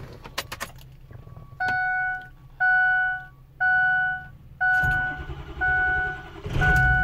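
Dashboard warning chime in a Ford F-250 Super Duty cab beeping about once a second, while the truck's 6.0-litre Power Stroke V8 diesel cranks on the starter from about two-thirds of the way in and catches near the end: the first start after its PCM reflash.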